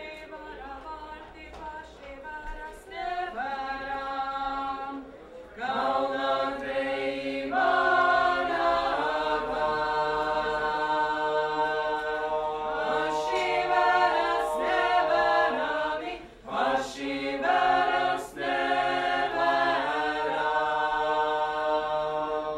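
Mixed choir of men's and women's voices singing a cappella in long, held chords. It starts softly and swells much louder about five and a half seconds in, with two brief breaks near the end.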